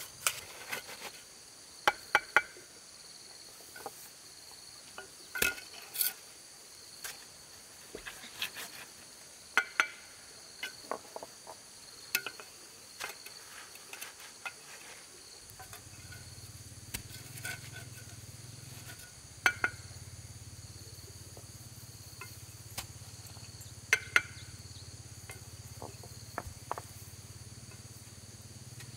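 Insects droning steadily in the background. Scattered sharp knocks and clinks from hand work come through it, and a low steady hum starts about halfway through.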